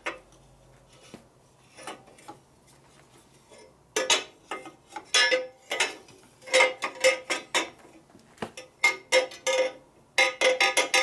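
Metal parts of a motorcycle exhaust clanking and ringing as they are handled: a few light taps, then from about four seconds in a quick run of sharp metal-on-metal clanks that ring with the same tone each time.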